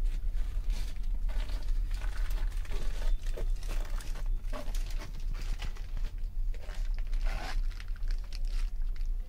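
Irregular rustling, crinkling and handling noise as the recording phone moves close past fabric berth curtains, over a steady low rumble.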